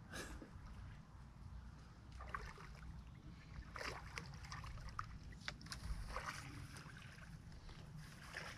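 A hooked carp splashing at the surface near the landing net as it is played in, in short irregular splashes, over a steady low rumble.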